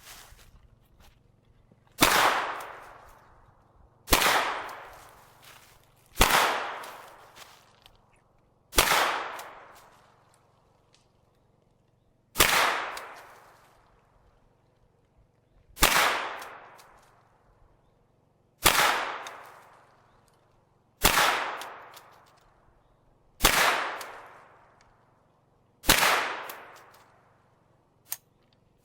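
Hi-Point 995 9mm carbine fired ten times at a slow, deliberate pace, a shot every two to three seconds, each crack trailing off in an echo over a second or so: the shooter emptying its ten-round magazine. A faint click follows near the end.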